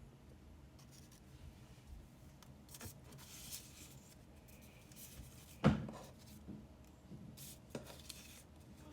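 Paper and craft materials handled on a table while making a collage: light rustling, scraping and small taps, with one sharper knock a little past halfway.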